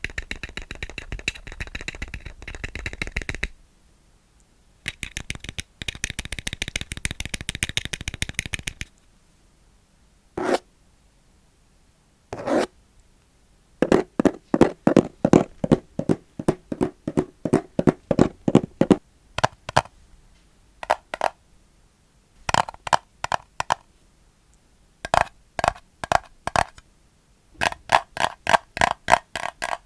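Close-miked ASMR handling of plastic. It opens with two stretches of dense crackling and scraping, then two single clicks, then runs of quick taps, about five a second, with a hollow ring.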